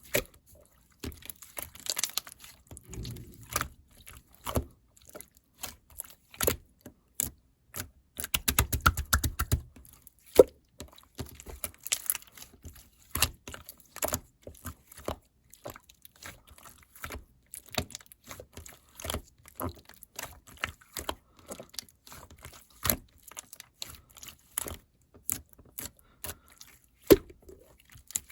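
Gold glitter slime being squished and poked by hand, making an irregular run of sticky clicks, pops and short crackles, with a few fuller squelches.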